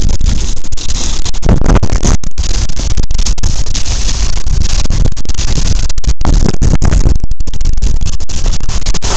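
Wind buffeting the action camera's microphone as a skier descends at speed, a loud, steady rushing noise, mixed with the skis scraping over packed snow.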